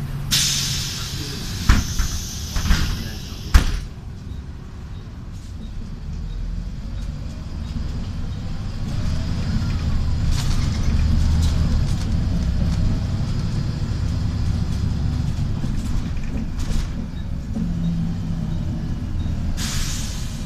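Volvo 7000 city bus heard from inside the cabin. Its pneumatic doors close with a hiss of air and three sharp clunks in the first few seconds, then its six-cylinder Volvo D7C diesel pulls away, the low rumble building and staying loud. There is another short hiss of air near the end.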